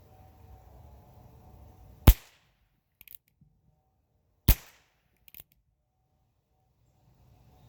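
Heritage .22 revolver firing two shots about two and a half seconds apart, loaded with Aguila Colibri low-velocity rounds, so each shot is a short, sharp crack that is not very loud. Each shot is followed about a second later by faint clicks.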